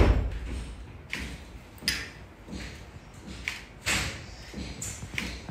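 A heavy thump at the start, followed by a handful of short, scattered light knocks and clicks.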